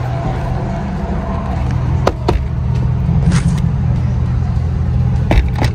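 Car engine idling with a steady low hum. Sharp clicks cut through it twice about two seconds in and twice near the end.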